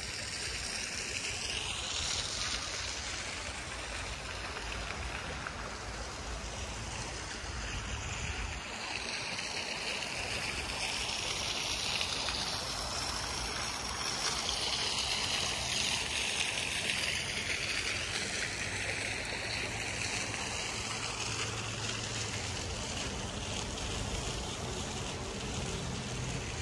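Small fountain jet splashing steadily into its stone basin: a continuous rush of water with a slowly shifting, swishing tone, loudest about halfway through.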